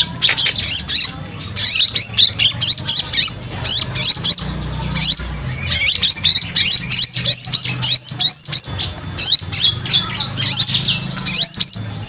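Grey-headed babbler held in the hand, calling in rapid, loud, sharp chirps, each a quick downward sweep, with short lulls about a second in and again around five seconds in. The agitated calling fits a bird that is fierce at being handled.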